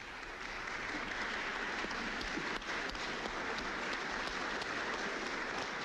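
Sustained applause from a hall full of deputies: a steady dense clatter of many hands clapping, easing off near the end. It greets the adoption of a resolution in a parliamentary vote.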